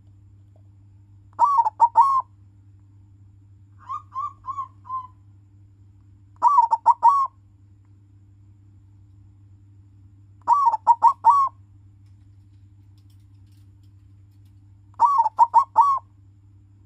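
Silver-coloured zebra dove (perkutut) cooing: five short phrases of about four quick notes each, a few seconds apart, the second one softer. A steady low hum runs underneath.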